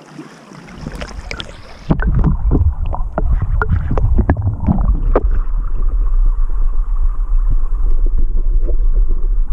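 River water heard through a submerged camera. A quiet stream hiss gives way suddenly, about two seconds in, to a muffled low rumble of current with many sharp bubbling clicks, which runs on loudly to the end.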